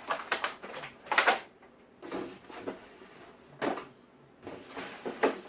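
Cardboard box and plastic figure packaging being handled and pulled apart: a series of short knocks, scrapes and rustles, the loudest cluster about a second in.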